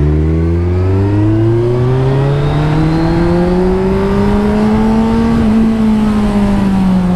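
Kawasaki Ninja 1000's 1043 cc inline-four engine on its stock exhaust, pulling under way. Its pitch rises steadily for about five seconds, then eases a little. A nice rumble, not very loud, with wind noise on the microphone underneath.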